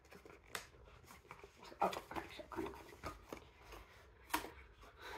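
Cardboard box and paper packaging rustling and scraping as a plastic bottle is worked out of it by hand, with a few sharp clicks and taps, the sharpest about four seconds in.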